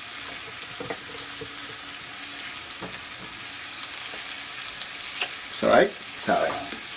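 Sliced kielbasa and onions sizzling steadily in a frying pan, with a few light clicks. A couple of short, louder sounds break in near the end.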